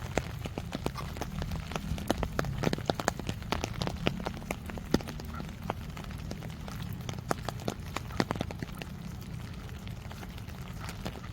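Rain falling, with close raindrops tapping irregularly, clustered most thickly in the first half, over a steady low rumble.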